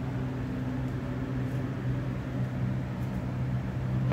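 Steady low machine hum with a constant droning pitch.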